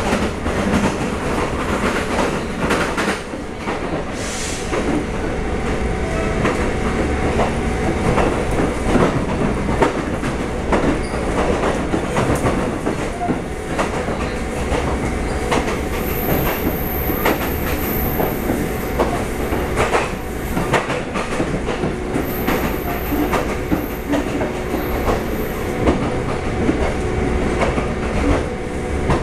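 Running sound of a Taiwan Railway EMU400 electric multiple unit heard from inside the passenger car: a steady rumble and hum with frequent irregular clicks of the wheels over rail joints.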